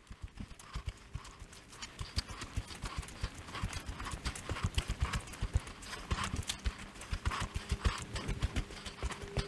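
Footsteps on gravel and sand played back sped up, so the steps come as a quick, even patter, several a second.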